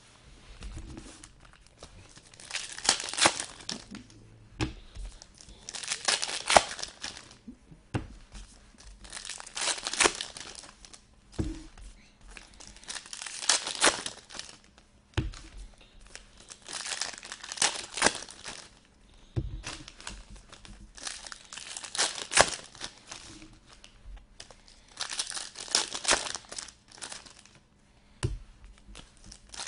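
Foil trading-card pack wrappers being torn open and crinkled in the hands, in a burst of rustling roughly every three or four seconds, with small clicks and handling noise in between.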